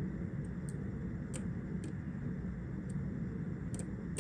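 Steady low room noise, with about seven faint, light ticks at uneven intervals.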